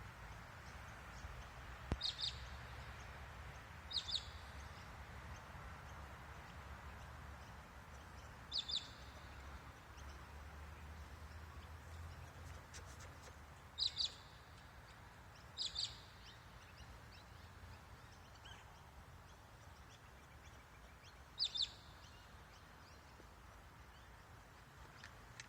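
Kangaroo giving short, high double chirps, six pairs a few seconds apart over a faint low rumble; the calls are taken to be courtship calls, probably.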